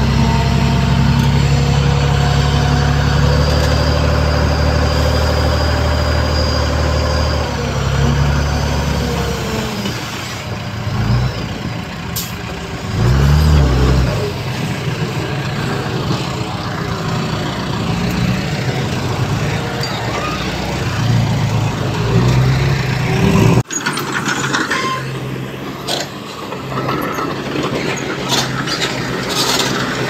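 Heavy diesel earthmoving machinery working. An engine revs up at the start and runs hard for about eight seconds, then eases off, with another brief surge about 13 seconds in. A sudden break near 24 seconds leaves a lower engine sound with scattered metallic clicks.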